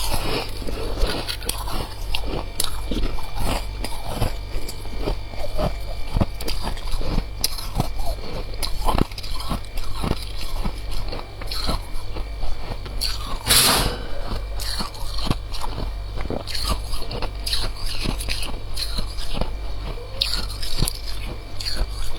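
Close-miked biting and chewing of freezer frost: dense, irregular crisp crunches, with one louder crack a little past halfway, over a steady low hum.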